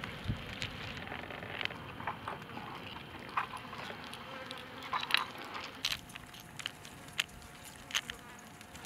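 Flies buzzing, with scattered sharp clicks and taps; the loudest clicks come a little past halfway.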